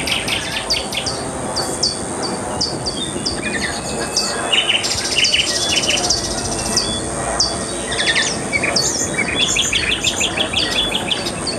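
A mix of night-animal field recordings, birds, frogs and insects: short falling chirps repeated about once or twice a second, rapid trills, and a steady high insect whine, over a steady low background noise.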